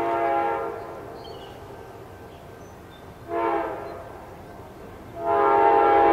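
Amtrak GE Genesis locomotive's air horn sounding a steady multi-note chord. A long blast ends just after the start, a short blast comes about three seconds in, and a louder long blast begins near the end. The short-then-long ending is the close of the standard grade-crossing horn signal of the approaching train.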